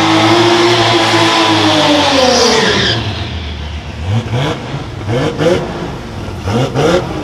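Mazda RX-7 drag car doing a burnout: its engine held at high, steady revs with the tyres spinning, easing off about three seconds in. Then it idles between short, sharp throttle blips that come in pairs as the car rolls forward to stage.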